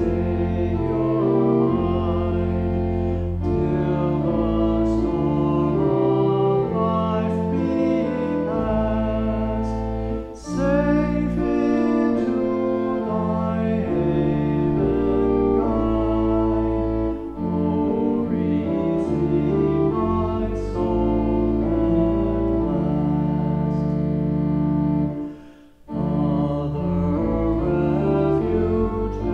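Slow meditative music of sustained chords over long-held bass notes, with a brief pause near the end.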